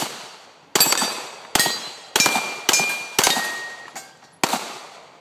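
Rapid pistol shots at steel plates, about seven in quick succession, some followed by a brief metallic ring as a plate is hit.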